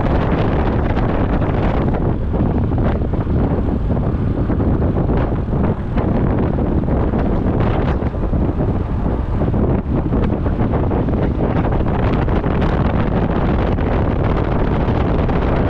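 Ride noise from a motor scooter underway: steady wind rushing over the action camera's microphone, mixed with the scooter's engine and tyre noise.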